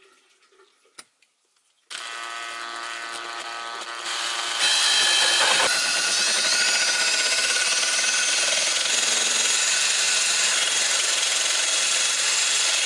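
Cordless drill spinning a hole saw as it cuts through the corner of a skateboard deck, trimming the deck to cure wheel bite. The drill starts just under two seconds in, gets louder around four seconds in as the saw bites into the deck, then runs steadily.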